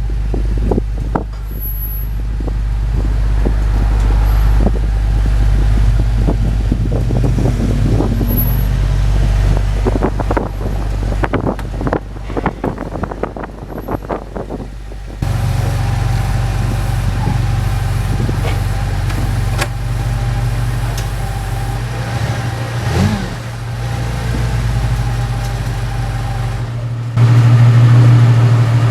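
Car running: a steady low engine and road noise, broken into three clips with sudden changes about halfway through and near the end, and scattered clicks and knocks in the first half.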